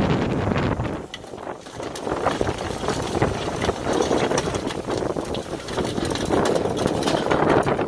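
Volvo L35GT compact wheel loader's diesel engine running under load, driving a Tokvam snowblower attachment that is throwing snow. The blower makes a steady churning noise that dips briefly about a second in.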